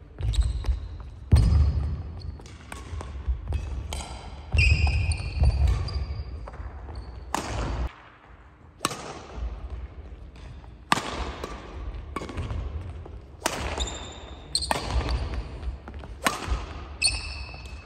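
Badminton rally: sharp racket strikes on the shuttlecock, players' footsteps thudding on the wooden sports floor, and brief high shoe squeaks. There is a short lull about eight seconds in, between rallies.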